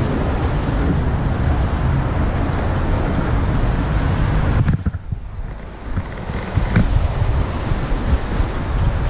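Wind buffeting the camera microphone, mixed with street traffic noise, as the rider moves along on an electric unicycle. The hiss thins out abruptly about five seconds in.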